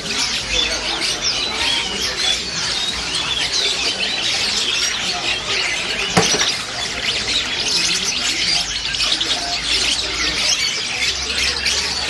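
Many birds chirping, whistling and squawking at once in a dense, continuous chorus, with one sharp click about halfway through.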